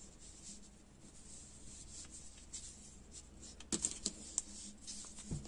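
Quiet handling of crocheted work and yarn: soft rustles and a few light clicks, the strongest about three-quarters of the way through.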